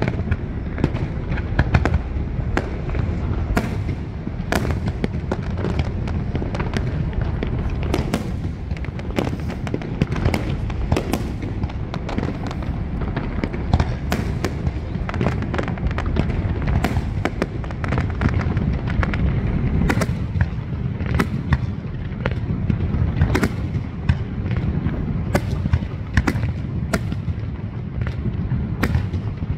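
Fireworks display: an irregular, rapid string of sharp bangs and crackles from bursting shells, over a continuous low rumble.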